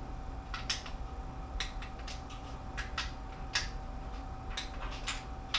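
Click-type torque wrench clicking on the cylinder-head bolts of a Jeep 3.7L V6, with a sharp click about once a second, some in quick pairs. Each bolt reaches the 20 ft-lb setting without turning further, a sign the head bolts are holding their torque as the gasket seats.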